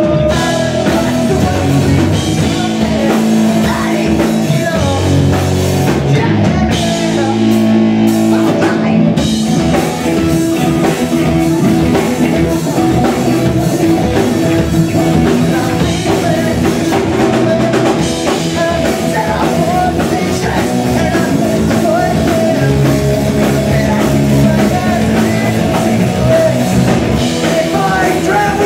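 Live pop-punk band playing loudly: distorted electric guitars, bass guitar and drum kit, with singing.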